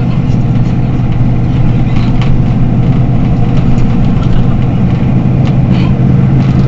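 Mercedes-Benz Citaro city bus's rear-mounted engine idling steadily while the bus stands at a stop: a loud, even low hum, with a few faint ticks over it.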